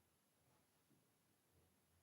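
Near silence: faint room tone with a couple of soft, barely audible sounds.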